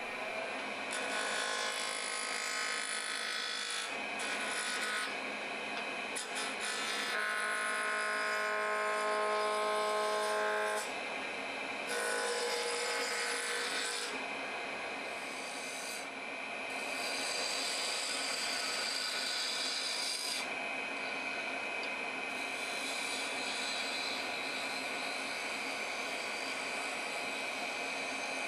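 Roughing gouge cutting a walnut blank spinning on a wood lathe, turning it down to a cylinder: a run of scraping, shaving passes a few seconds each, some with a ringing tone, over the steady hum of the lathe.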